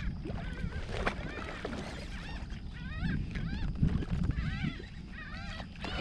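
A flock of birds calling, many short bending calls overlapping throughout, over a low steady rumble. The birds are working over a school of feeding redfish.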